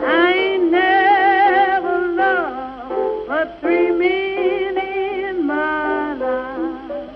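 Music: a singer holding long, wavering notes with wide vibrato over piano accompaniment.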